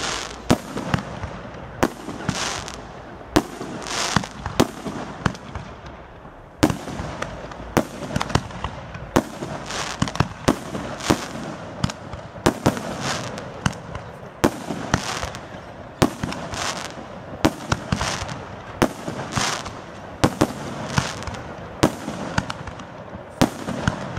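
Aerial fireworks shells bursting in quick succession, sharp bangs every second or so over bursts of hiss, with a brief lull about six seconds in.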